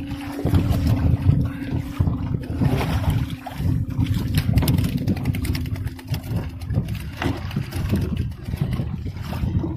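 Wet gill net being hauled and shaken out over the side of a small wooden boat: mesh and catch rustling, dripping and knocking against the hull in many short knocks. A steady low hum runs underneath and stops about seven seconds in.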